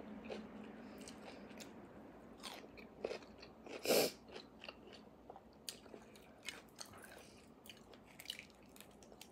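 Close-miked chewing of roasted beef bone marrow: soft, wet mouth sounds and small clicks, with one short louder noise about four seconds in.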